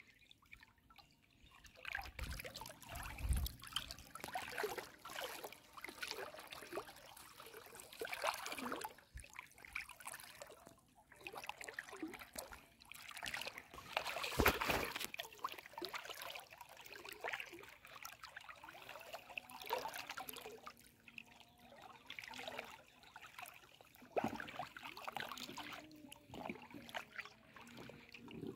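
River water sloshing and trickling around legs and bodies wading waist-deep, in irregular small splashes, with one louder splash about halfway through.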